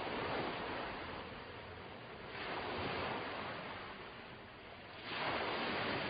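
Ocean surf: a steady wash of waves that swells three times, about every two and a half seconds.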